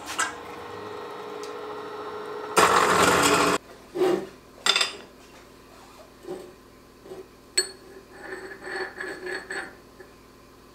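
A machine runs steadily for a couple of seconds, then a loud, noisy burst lasts about a second. After it come a few knocks and then light metallic clinks and rubbing as a steel shaft and a steel hex nut are handled against each other over a steel workbench.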